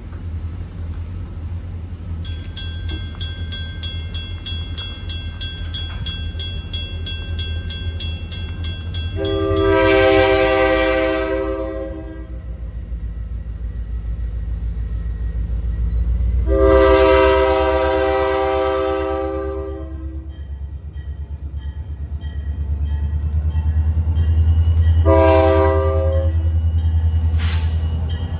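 Multi-chime air horn of an EMD GP40-2LW diesel locomotive approaching, sounding two long blasts and then a short one: the opening of the long-long-short-long grade-crossing signal. Beneath the horn runs the steady rumble of the locomotive's V16 two-stroke diesel, growing louder near the end as it draws close.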